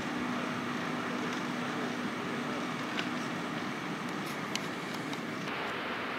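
Diesel engine of a TGM6D shunting locomotive running steadily: a low even hum over broad engine noise, with a few faint clicks partway through.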